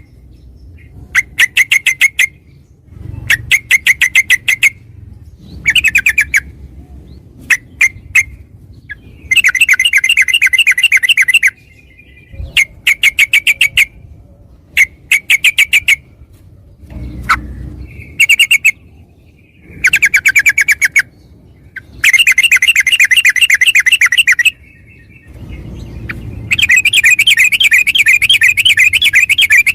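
Yellow-vented bulbul (trucukan) singing: bursts of rapid, evenly repeated notes, some short and some running unbroken for two to three seconds in a long rolling phrase (ropel), the kind of song used as a lure to set other bulbuls singing.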